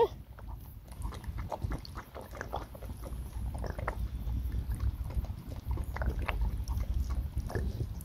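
Beagle lapping water from a cupped hand: a quick, irregular run of wet laps, over a low steady rumble.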